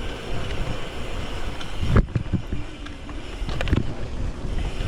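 Wind buffeting the microphone over the rumble of a Twitter Leopard Pro mountain bike rolling on a wet dirt trail. A sharp knock about two seconds in and a few clatters near the end come from the bike jolting over bumps.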